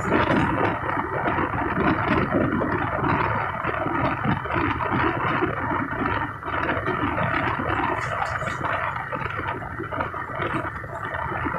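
Indian Railways passenger train running at speed, heard from beside the coaches: a steady, continuous noise of wheels running on the rails.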